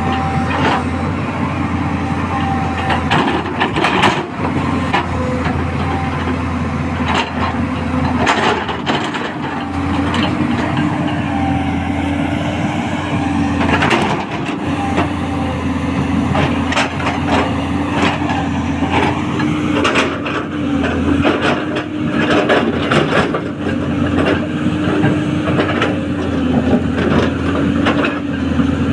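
Tracked excavator working: the diesel engine and hydraulics run with a steady hum whose pitch steps up slightly about ten seconds in, under frequent knocks and clanks from the machine.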